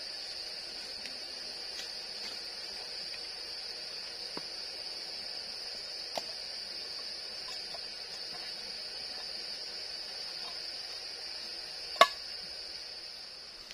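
A steady, high-pitched insect chorus, with a few faint ticks and one sharp clink of a small metal kettle being handled about twelve seconds in.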